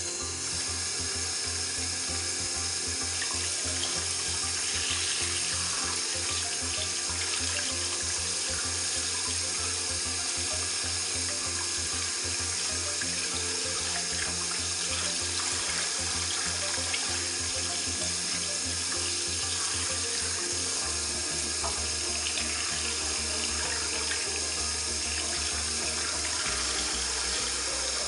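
Kitchen tap running steadily into a plastic bowl in a stainless-steel sink, the water splashing over mackerel as hands rinse and gut the fish under it.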